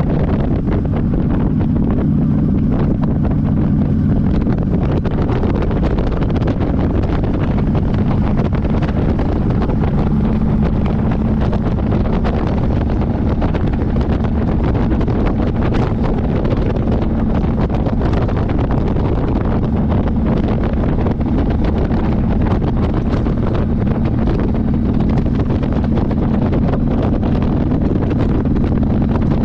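Motorcycle engine running steadily while riding, heard under heavy wind noise on the microphone.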